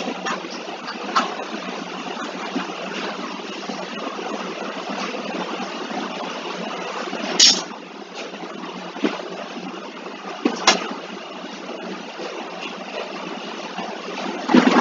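Steady, hiss-like background noise coming through a video-call microphone, broken by a handful of sharp clicks, the loudest at about seven and a half seconds, about ten and a half seconds and near the end.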